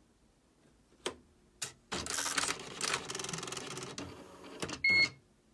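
Electronic typewriter at work: two clicks, then its motorised mechanism runs for nearly three seconds with a dense rattling whirr, followed by a short electronic beep near the end.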